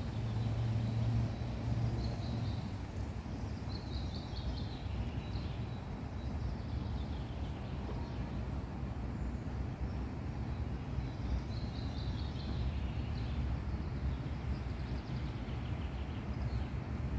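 Steady low outdoor rumble, with a small bird singing short falling trills several times over it.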